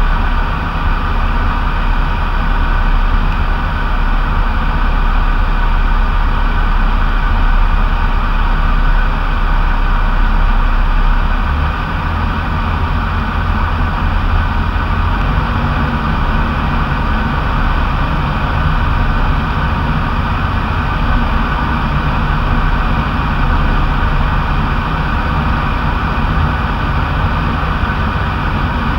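Light aircraft's piston engine and propeller droning steadily, heard inside the cockpit. The low rumble eases a little about twelve seconds in.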